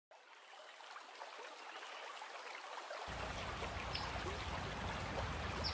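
Flowing creek water fading in gradually, with a low rumble joining about three seconds in and two faint high chirps.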